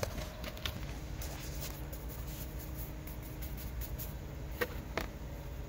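Faint scratchy strokes of a paintbrush worked over a rough cement wall, with a few light ticks, over a low steady background noise.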